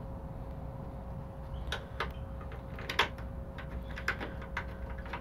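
A few scattered light metallic clicks and taps as a Toyota Tacoma tail-lamp mounting bolt is handled and started by hand into its hole, over a low steady background rumble.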